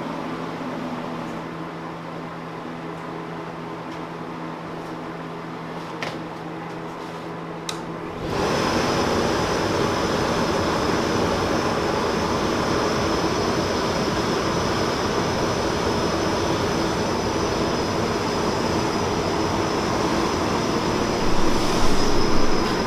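Welding fume extractor switched on about eight seconds in: after a low steady hum and a couple of clicks, its blower starts and keeps running with a steady rushing noise and a high whine.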